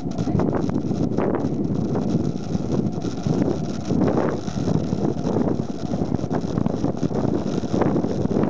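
Wind rushing and buffeting over the microphone of a bicycle-mounted camera on a fast downhill ride. Frequent small knocks and rattles from the bike run through it.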